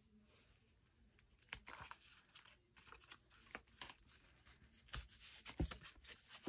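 Faint rustling and crinkling of paper being handled and folded, with a glue stick rubbed across it and a few light knocks on the table. The first second or so is nearly silent.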